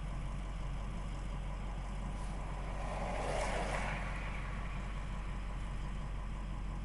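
Car engine idling, a steady low hum heard from inside the cabin, with a brief swell of rushing noise about three seconds in.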